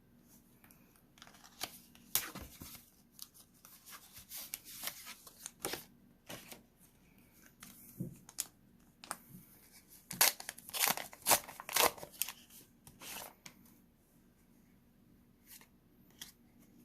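Wrapper of a McDonald's Pokémon card pack being torn open and crinkled, with the cards handled: irregular tearing and crackling, loudest about ten to twelve seconds in, fading near the end.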